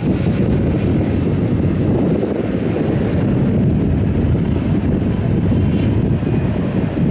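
Loud, steady jet airliner engine noise, a deep rumble with a faint high whine, mixed with wind buffeting the microphone.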